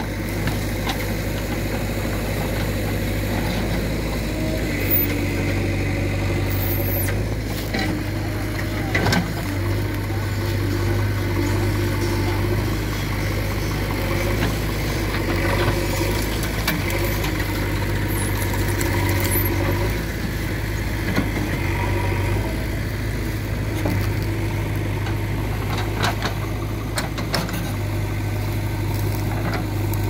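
JCB 3DX backhoe loader's diesel engine running steadily while the backhoe arm and bucket push and lift a heavy log, with a few sharp knocks from the bucket against the wood.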